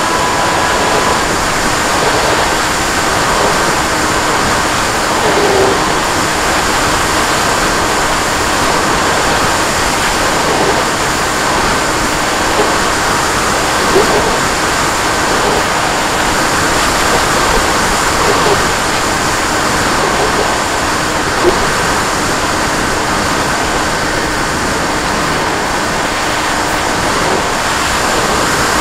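Steady rush of wind over an RC airplane's onboard camera microphone, mixed with the constant whine of the plane's motor and propeller in flight.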